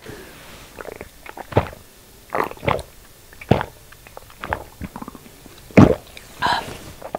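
A person gulping Filgood Extra, a carbonated low-malt beer, from a can: a series of separate swallows, roughly one every half second to a second, picked up close on a lapel microphone.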